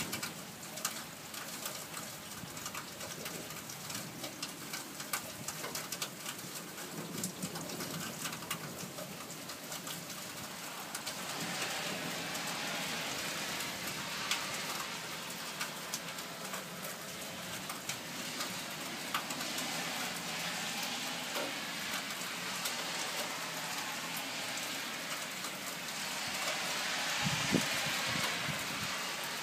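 Steady rain of a thunderstorm falling, with many sharp taps of single drops. The rain grows heavier about eleven seconds in and again near the end. A brief low thump comes shortly before the end.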